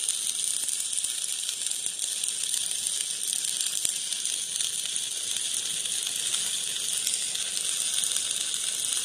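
Stick (shielded metal arc) welding with a 4 mm electrode: the arc gives a steady, crackling hiss with faint ticks and no breaks, the even sound of a stable arc.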